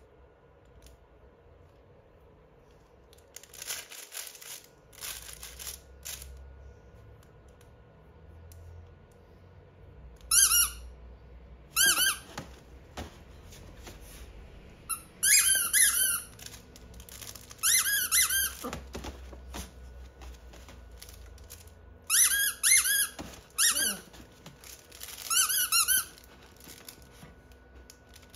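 Squeakers in a plush dog toy squeezed by hand again and again: sharp, pitched squeaks in short clusters through the second half, each one loud and brief. About four seconds in there is a short spell of papery crackling from the crinkle-lined ears.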